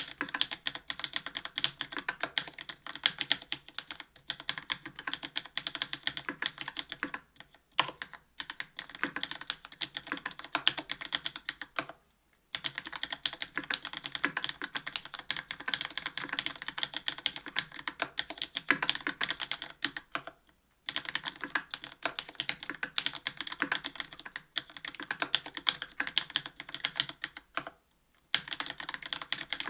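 Continuous fast typing on a Linworks Special Dolphin 2021 mechanical keyboard with Cherry MX Black linear switches on an aluminium plate and GMK Modern Dolch Light keycaps. It is a dense run of keystrokes that breaks off briefly four times.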